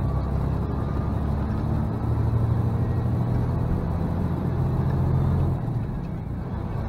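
Semi truck's diesel engine running under way with road noise, a steady low drone that eases off slightly about five and a half seconds in.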